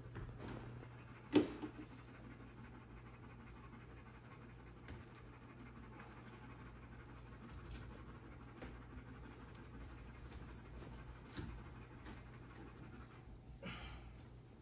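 Soft panting in a quiet room, with one sharp click about a second and a half in and a few fainter clicks later.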